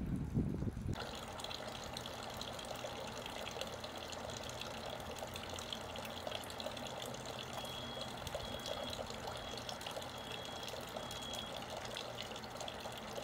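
Water running and splashing steadily in a tank of young fish, starting about a second in after a brief low rumble.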